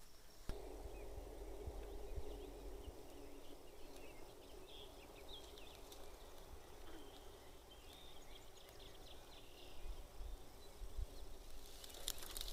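Faint outdoor ambience: scattered bird chirps over a low, steady rumble.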